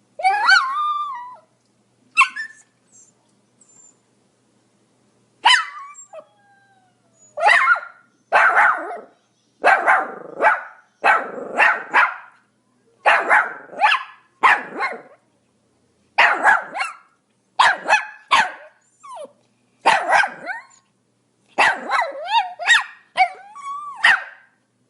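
Pomeranian barking. It opens with one drawn-out whiny yelp and a few short yips, then after a short pause gives a long run of sharp, high barks in quick groups of two or three.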